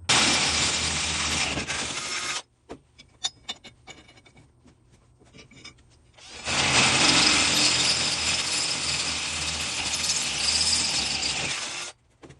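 Power drill boring out a hole in the tractor's steel frame to take 1/2 inch bolts. It runs in two bursts, about two seconds and then about five seconds long, with a few light clicks and knocks in between.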